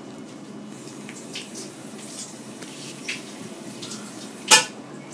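Quiet handling sounds of a plastic syringe pushing saline into a gastrostomy tube's balloon to test it for leaks: a few faint clicks over low room noise, and one brief sharp click near the end.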